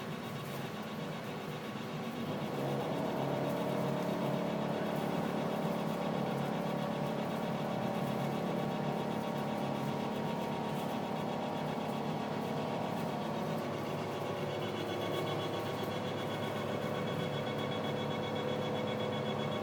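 GS-100 wire-stripping machine running steadily while stripping aluminium wire, its motor giving a continuous hum that grows a little louder about two seconds in. A higher steady whine joins about fourteen seconds in.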